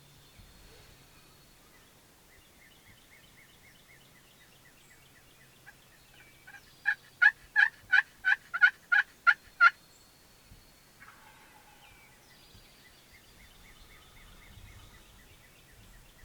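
A turkey yelping: a run of about nine loud, evenly spaced yelps, about three a second, lasting under three seconds midway through. Faint songbirds sing before and after it.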